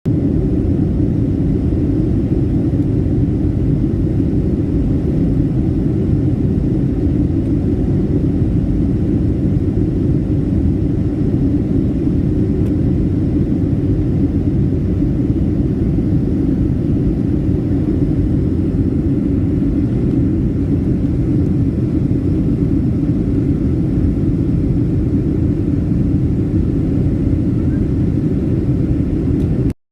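Steady in-flight cabin noise of a jet airliner: an even low rumble of engines and airflow. It cuts off abruptly right at the end.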